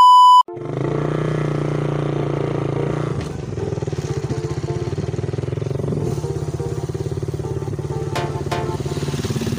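A short, high, steady test-tone beep, then a motorcycle engine running steadily while the bike rides along a road.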